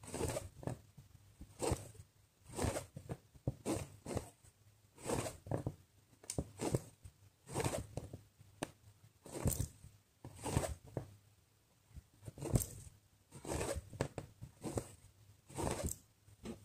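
Cross-stitch needle and embroidery floss being drawn through evenweave fabric, stitch after stitch: short pulls of thread at an uneven pace, about one a second.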